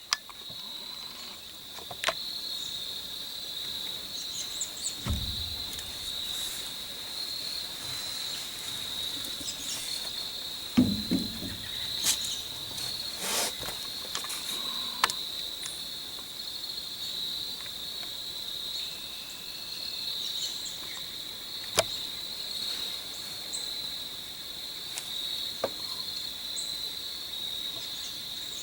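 Crickets trilling, a steady high-pitched chorus. Scattered sharp clicks and two low thuds break over it.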